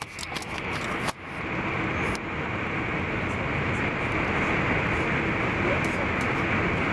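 Steady running noise of an SJ X40 double-deck electric train, heard inside the passenger cabin. A few clicks and knocks in the first second come from the camera being moved and set down.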